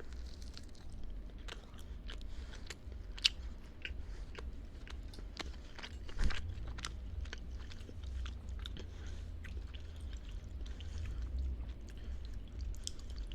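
Close-miked chewing, many small irregular crackling clicks from the mouth, with a sharper click about 3 s in and another about 6 s in, over a steady low hum.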